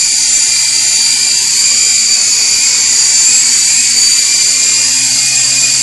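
Small toy RC helicopter in flight, its electric motors and rotors giving a steady, high-pitched whine over a low hum.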